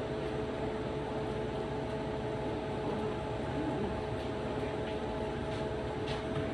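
Loud kitchen appliance motor running with a steady whirring hum, a few steady tones in it. A few faint ticks come near the end.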